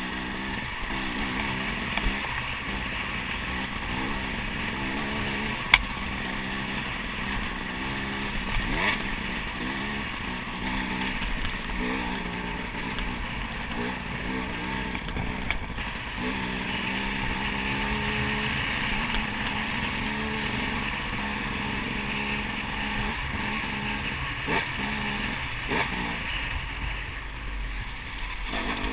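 Dirt bike engine running under the rider's throttle on a trail ride, its pitch rising and falling as it revs up and backs off. Several sharp knocks cut through, the loudest about six seconds in.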